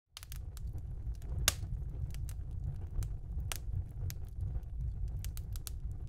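Crackling log fire, as from a fireplace video: irregular sharp pops and snaps over a low steady rumble, with the loudest pop about one and a half seconds in.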